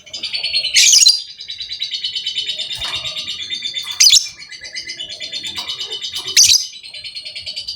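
Lovebird singing a long, rapid pulsing chatter (the 'ngekek' song), broken three times by short, louder harsh shrieks.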